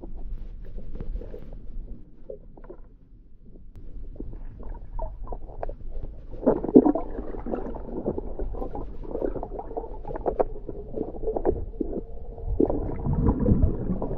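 Muffled underwater sound of a spearfisher swimming: water sloshing and bubbling with scattered clicks and knocks. It grows louder from about six seconds in.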